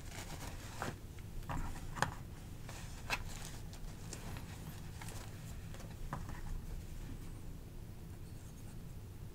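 Quiet handling sounds: a cloth rubbing over a folding-knife blade, with a few light clicks and taps of the steel being handled.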